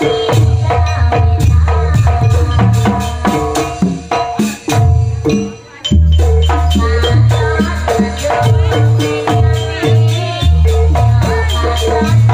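Jaranan ensemble playing a Banyuwangi-style gending through an amplified sound system: hand drums, small kettle gongs and a melodic line over heavy bass, in a steady rhythm. The music drops away briefly about five and a half seconds in, then comes back in full.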